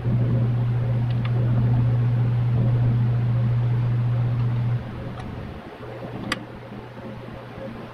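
A steady low mechanical hum, much louder for the first five seconds or so and then dropping back to a quieter level, with a few light clicks and one sharper click about six seconds in.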